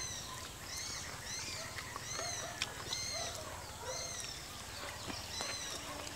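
A bird calling over and over: short, arching high chirps about twice a second, with some lower calls mixed in around the middle, over a steady low rumble.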